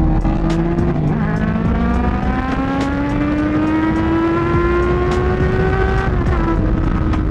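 Motorcycle engine under acceleration. A gear change about a second in is followed by a long, slow climb in revs, then another change around six seconds in, with wind rumble underneath.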